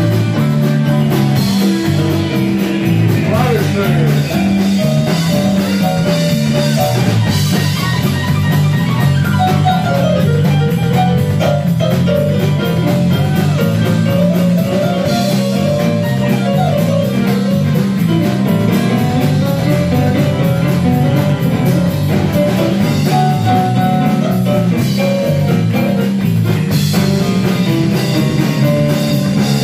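Live blues band playing an instrumental break: a bass line stepping from note to note, drums with cymbals, and a lead line of sliding, bent notes.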